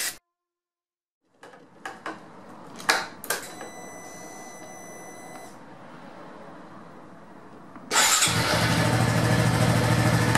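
A few sharp clicks, then about eight seconds in the Honda Innova 125's single-cylinder four-stroke engine starts on the electric starter and runs steadily, showing that the cleaned starter switch works again.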